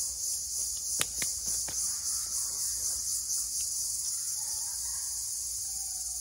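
Steady, shrill chorus of insects such as crickets, with a few sharp clicks between one and two seconds in.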